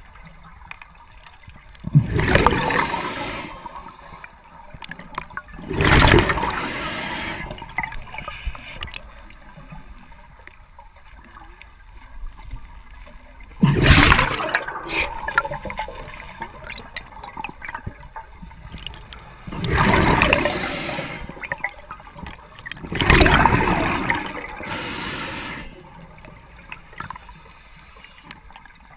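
A diver breathing through a regulator underwater: five gurgling surges of exhaled bubbles a few seconds apart, over a steady underwater background.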